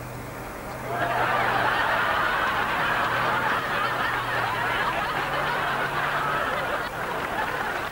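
A tank's engine running with a steady low hum under a continuous noisy din as the tank drives over parked cars.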